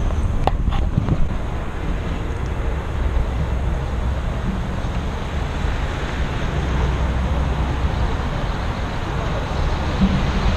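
Steady low rumble with a hiss of background noise, even throughout, with no distinct events. It is the kind of noise wind on a microphone or passing traffic makes.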